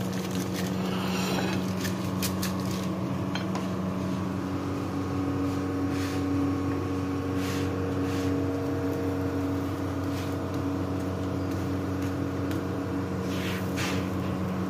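A steady mechanical hum of a few fixed tones runs in the kitchen while an aloo paratha roasts on an iron tawa. A handful of brief crackles and light taps sound over it.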